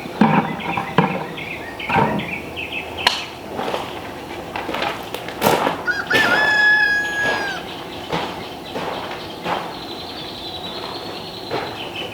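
Chickens clucking, with a rooster crowing once about six seconds in, a single crow of about a second and a half.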